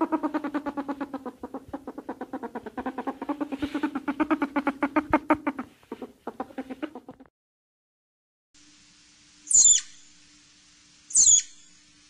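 Animal sounds: a rapid pulsed call for about seven seconds, then, after a short gap, three short high-pitched calls sweeping downward, about a second and a half apart, over a low steady hum.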